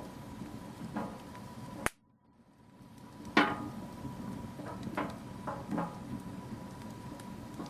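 Wood fire crackling in a fireplace: a steady low hiss with scattered sharp pops, the loudest about three and a half seconds in. About two seconds in the sound cuts out abruptly and fades back in over a second or so.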